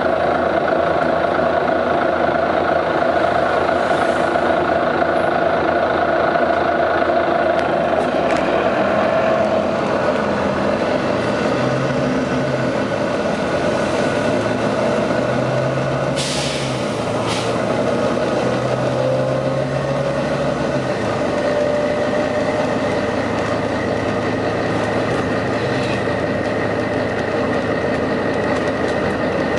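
Volvo B9TL bus's diesel engine running steadily with a constant whine and hiss, which the owner thinks sounds like a dodgy turbo. A short burst of air hiss comes about sixteen seconds in.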